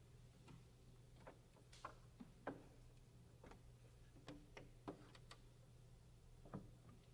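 Near silence: faint, scattered clicks and taps, about a dozen at uneven spacing, over a low steady hum.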